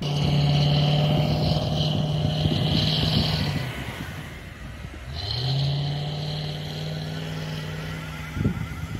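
A 4x4's engine held at high revs under load while driving through deep snow. It eases off about four seconds in, then revs back up a second later and holds. A few sharp knocks come near the end.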